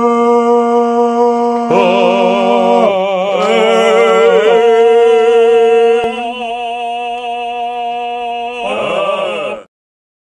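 Several sung voices holding long notes together in a chord, some with vibrato. Near the end the notes slide downward together and cut off suddenly.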